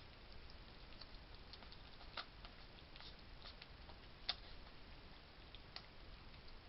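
Faint, irregular crunchy clicks of a hedgehog chewing dry food at a feeding station, with two louder clicks about two and four seconds in, over a steady low hiss.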